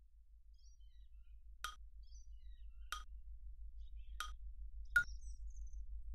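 Background music: four bright chime-like strikes about a second apart, the last one loudest, over a quick low bass pulse that fades in.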